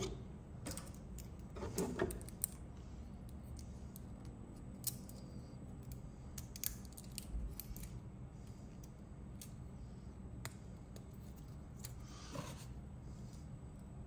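Scattered small clicks and ticks of freshly 3D-printed plastic parts being handled and pried apart by hand, with a brief scraping rustle near the end.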